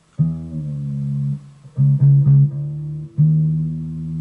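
Electric guitar through an amplifier: a low string plucked about five times, a single note at the start, a quick group of three around the middle and another after three seconds, each ringing out and fading. The string's pitch is being changed by altering its tension by hand rather than with the tuning peg.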